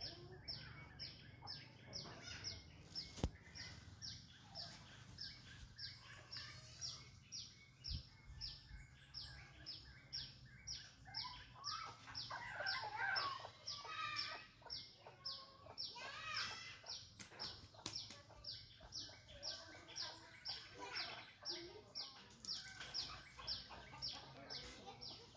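Birds calling outdoors: a short high chirp repeats steadily, a little over twice a second, with louder, more varied calls about halfway through.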